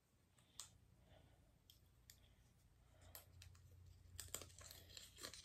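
Near silence with faint, scattered small clicks and taps from hands working a fingerboard deck and its grip tape, over a faint low hum; the clicks come a little more often toward the end.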